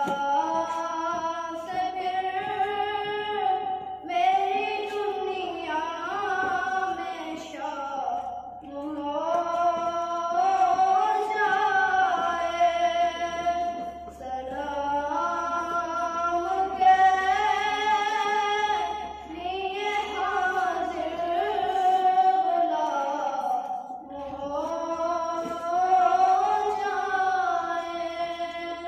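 A boy sings an Urdu naat unaccompanied into a handheld microphone, drawing out long notes that bend up and down, in phrases separated by short breaths.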